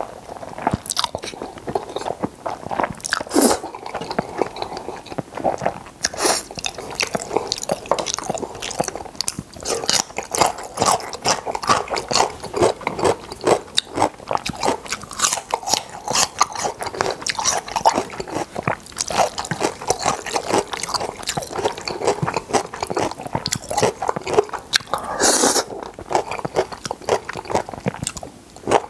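Close-miked eating of seafood jjajangmyeon: wet chewing and smacking of noodles and seafood in thick black bean sauce, with noodles slurped in from chopsticks, as irregular rapid mouth clicks and smacks and a few louder slurps.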